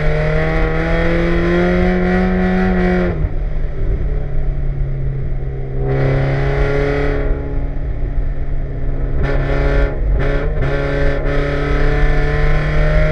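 1995 Mazda Miata's 1.8-litre four-cylinder racing engine heard from inside the cabin, pulling with its pitch climbing, dropping about three seconds in, then rising again. A high hiss comes and goes over it.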